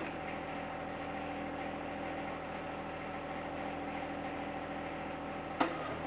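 A John Deere compact tractor's diesel engine runs at a steady speed with an even hum, driving the hydraulics of a 260B backhoe.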